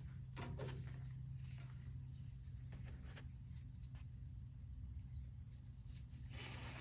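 Faint scattered clicks, scrapes and rustles of hand tools being worked on the excavator's hydraulic hose fittings, with a denser burst near the end, over a steady low hum.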